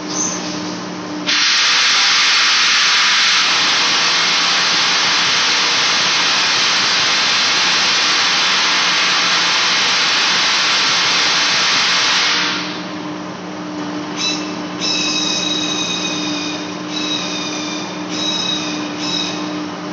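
Large lathe turning a steel flange while facing it, the machine humming steadily. A loud hiss starts about a second in and stops after some ten seconds. Then a high squeal from the cut comes and goes in several short spells.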